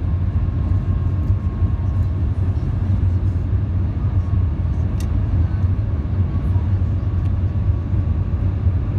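Steady low rumble inside the passenger cabin of the Shanghai maglev train running at speed, with one faint click about halfway through.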